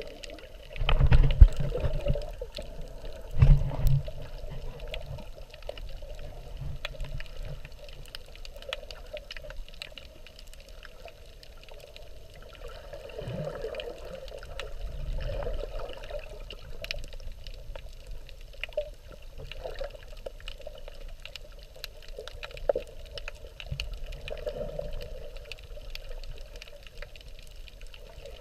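Water heard underwater by the submerged camera: a muffled steady wash and trickle, with two louder low surges in the first four seconds and scattered faint clicks.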